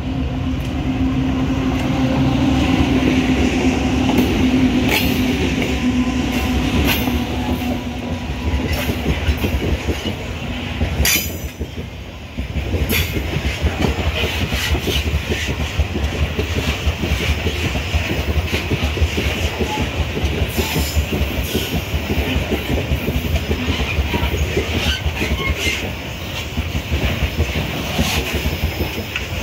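A freight train passes close by. For the first ten seconds or so the diesel locomotives' engines drone steadily. After that, a long string of gondola wagons rolls by with a continuous wheel rumble, rhythmic clickety-clack over the rail joints and some wheel squeal.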